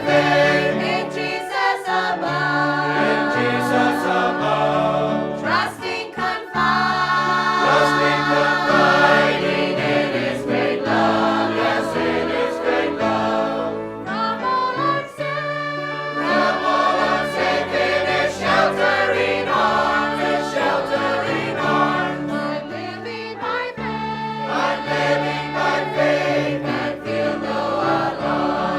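Choir singing a gospel hymn, with music throughout.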